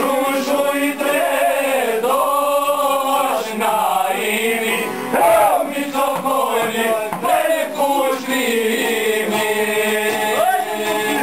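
Group of men singing a traditional Albanian folk song in unison, accompanied by plucked çifteli and sharki long-necked lutes.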